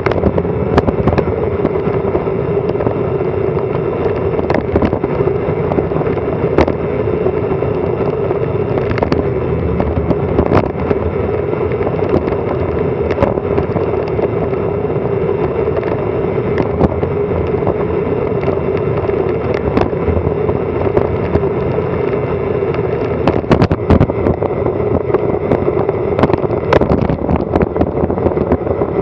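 Wind rushing over an action camera's microphone on a fast bicycle descent, a steady loud roar with a hum running through it, broken by many sharp knocks and clicks from the mount shaking over the road.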